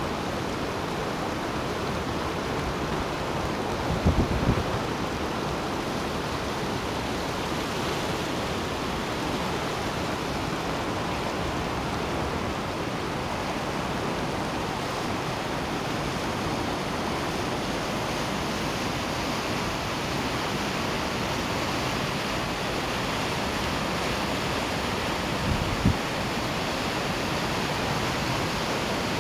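Steady rushing of the flood-swollen Guadiana river flowing fast past the bridge, with two brief low bumps, about four seconds in and near the end.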